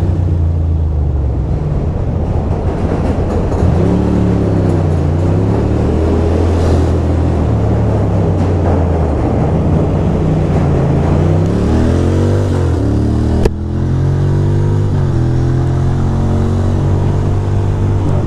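2006 Ducati Monster 620's air-cooled L-twin engine on the move, revving up and dropping back as it accelerates and shifts. About thirteen seconds in, as the revs climb and fall away, there is a single sharp pop: a backfire, which the rider puts down to an air leak that makes the bike backfire when ridden hard.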